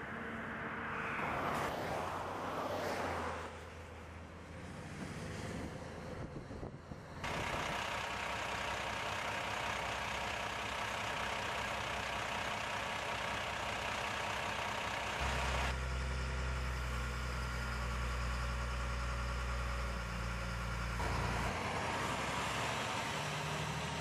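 Diesel snow-plow dump truck running on a slushy road, with tyre and spray hiss. Then a steady hiss as liquid calcium chloride is pumped through a hose. Then the truck's diesel engine runs close by with a strong low hum that cuts off a few seconds before the end.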